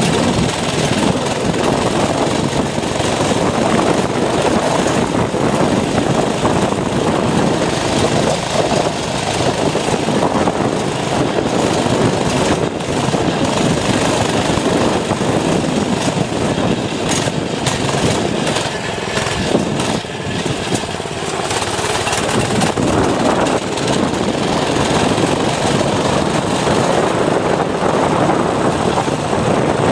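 Baja mini bike's small engine running steadily while riding at speed, mixed with wind rushing over a helmet-mounted camera's microphone.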